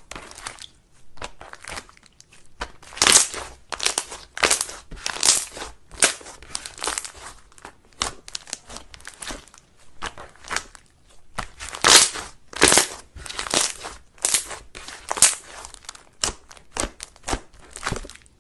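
Slime being squished and pressed by hand, giving an irregular series of short crackly, crunchy squishes.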